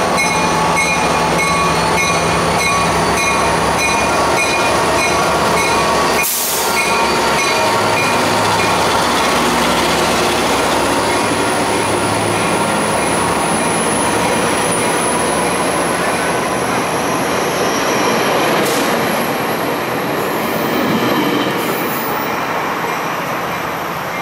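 Tri-Rail diesel commuter train, locomotive and bilevel passenger coaches, rolling past close by: a steady loud din of engine and wheels on rail. A repeating high ring stops about six seconds in, and a thin wheel squeal runs in the later seconds. The noise eases near the end as the train moves away.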